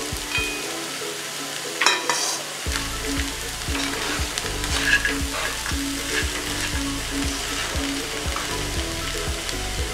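Spatula stirring and scraping through poha, potatoes and peanuts frying in a kadhai, with the odd louder scrape, about two seconds and five seconds in.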